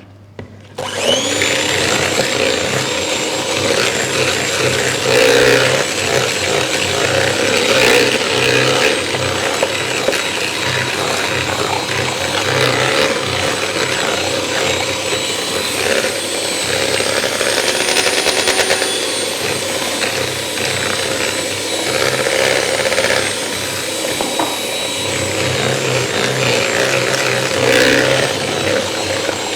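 Electric mixer starting up about a second in, then running steadily as it beats cookie dough of creamed butter, sugar, egg and flour. It makes a continuous motor whine.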